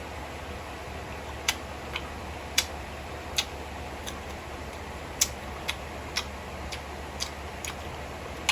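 Eating sounds: about a dozen sharp, irregularly spaced clicks and smacks from chewing, over a steady low hum.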